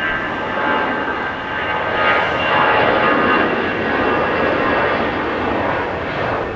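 Airbus A319-132 jet airliner's IAE V2500 turbofans at takeoff power: a loud, steady jet noise with a thin high whine over it, easing slightly near the end.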